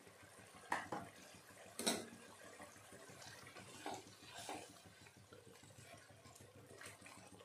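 Grated tomato masala simmering in a kadhai with a faint bubbling, and a few short scrapes and taps of a spatula stirring it, the sharpest about two seconds in.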